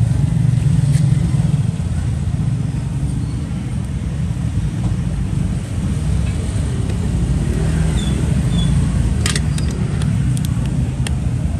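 A steady low rumble of motor traffic, with a few sharp clicks between about nine and eleven seconds in.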